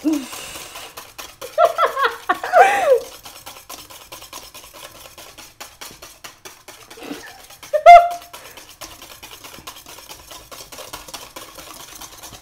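A whisk beating against the side of a metal mixing bowl in rapid, even clicks: egg yolk and oil being whisked by hand into a thick mayonnaise as the oil is drizzled in. Short vocal sounds break in about two seconds in and again near eight seconds.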